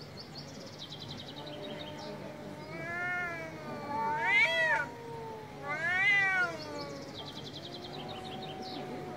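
Two angry cats in a standoff yowling at each other: long, low, wavering yowls throughout, broken by two louder yowls that rise and fall in pitch, about four and six seconds in, from the orange tabby with its mouth wide open.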